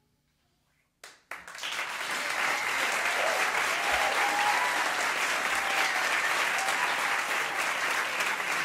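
Audience applause breaking out about a second in after a brief silence, then holding steady and loud, with whoops and cheers over the clapping.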